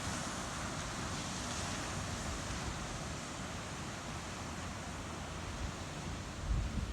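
Ocean surf washing in as a steady hiss, with wind rumbling on the microphone; a stronger gust comes near the end.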